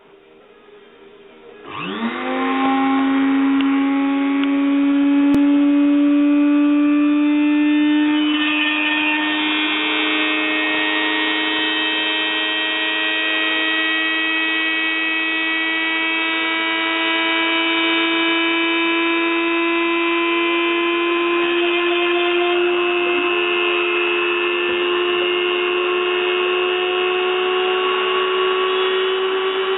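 ShapeOko DIY CNC mill running: its spindle motor spins up about two seconds in with a quick rising whine, then hums steadily, its pitch creeping slowly higher, while the bit engraves a plywood board.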